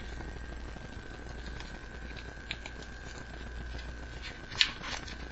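Homemade paper card pack being handled and folded open: faint scattered rustles and ticks of paper, with a louder crackle of paper about four and a half seconds in.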